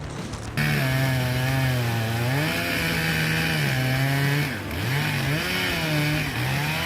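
Chainsaw cutting through wood, its engine pitch dipping and rising as it loads up in the cut and frees again. It starts abruptly about half a second in.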